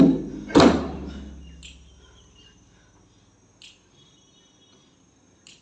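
A single loud hit about half a second in that dies away over about a second, then quiet with faint insect chirring, crickets, and a few short high chirps.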